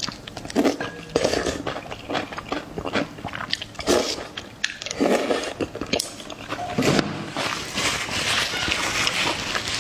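Close-miked eating: a person chewing and biting food, with many quick wet clicks and smacks and irregular louder mouthfuls.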